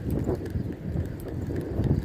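Wind buffeting the microphone: an uneven low rumble that swells and fades, with faint small ticks over it.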